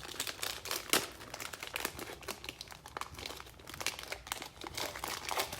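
Plastic trading card pack wrapper crinkling as it is handled and opened, a dense run of small irregular crackles with one sharper crackle about a second in.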